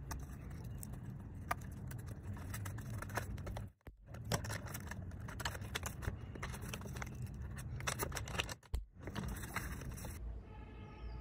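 Handling noise of small parts: irregular clicks, taps and light scrapes as a thin wire hook and a black plastic plate are worked into a cutout in a foam model-plane fuselage. The sound cuts out briefly twice.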